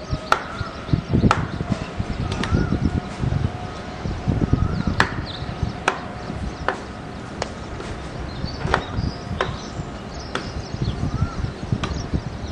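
Sharp, irregular knocks, like chopping, about once a second, over low rumbling and a faint steady whine from the distant Boeing 777-300ER's engines.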